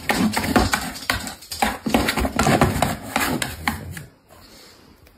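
A pug's claws scratching and tapping at a cardboard box, a quick, irregular run of scratches and taps that stops about four seconds in.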